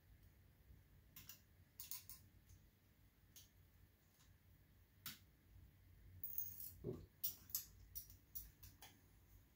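Faint clicks and taps of small parts being handled and pressed into a scale model crane, a few scattered clicks at first, then a quick cluster in the last few seconds with a soft knock about seven seconds in.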